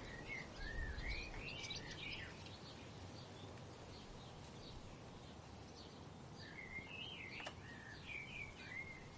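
Faint bird song: two quick warbling phrases of about two seconds each, one at the start and one near the end, over a low steady hiss.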